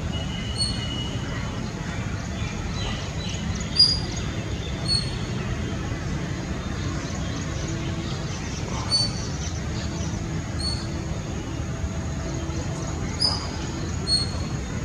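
A bird chirping: about seven short, high-pitched calls a second or more apart, the loudest about four seconds in, over a steady low background rumble.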